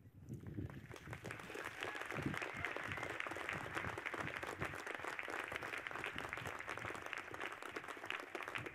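Audience applause, many hands clapping; it starts at once, swells over the first two seconds and then holds steady.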